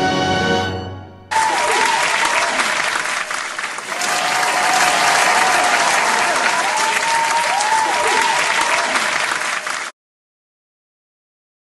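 Crowd applauding, with a few voices calling out over it, for about eight seconds; it cuts off suddenly.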